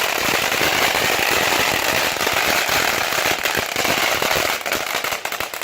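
A lit consumer firework going off with a dense, continuous crackling hiss, breaking into a quick run of separate sharp pops near the end.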